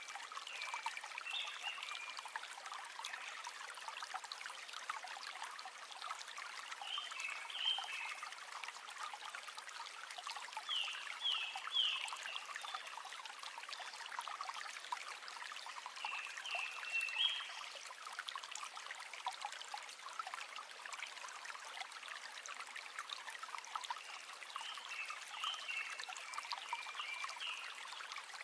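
A river flowing and trickling in a steady rush. Short, high chirping calls recur every few seconds over it.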